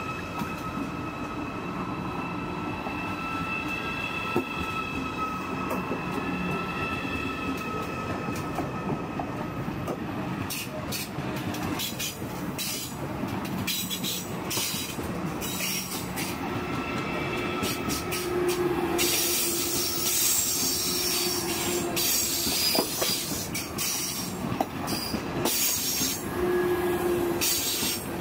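Deutsche Bahn ICE high-speed train running slowly alongside the platform. A steady high whine is heard at first, then clicks from the wheels over rail joints, and in the last ten seconds it grows louder with a high hissing squeal from the wheels.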